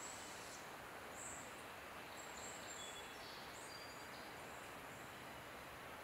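Barred owlet giving several short, faint, high-pitched squeals over a steady outdoor hiss.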